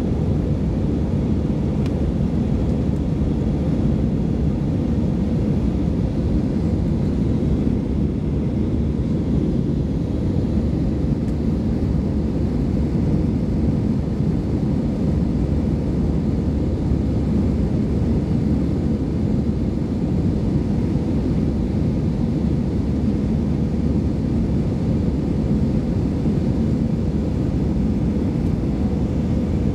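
Steady cabin noise of an Airbus A319-100 in flight: an even low rumble of engines and rushing air during the climb after takeoff.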